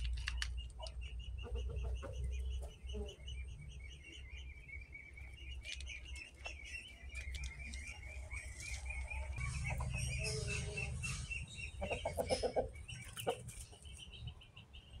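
Chickens clucking in short calls, loudest about twelve seconds in, over rapid high-pitched bird chirping that runs through most of it and a low rumble.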